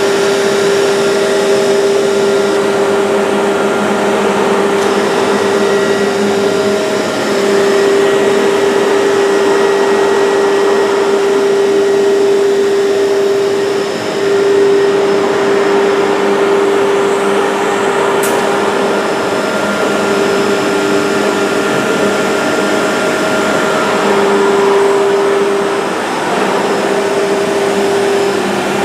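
Woodworking machinery running steadily: a continuous motor whine with a strong held tone over a rushing noise, like a spindle or dust extractor. The level dips briefly now and then.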